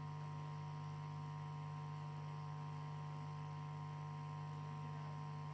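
Steady electrical mains hum, a low buzz holding one unchanging pitch.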